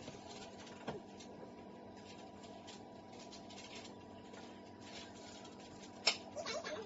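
Quiet room tone with a steady faint hum and scattered faint clicks, then one sharp click about six seconds in, followed by a brief faint voice.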